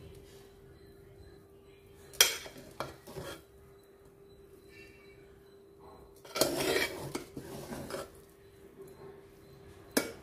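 Metal serving spoon scraping and knocking against the inside of an aluminium pressure cooker while turning cooked rice. There is a sharp clink about two seconds in, a longer stretch of scraping and knocks from about six to eight seconds, and another clink near the end.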